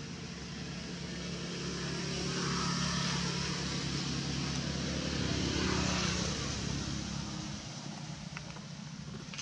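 Motor vehicle passing by: a low engine hum and road noise swell to their loudest about six seconds in, then fade away.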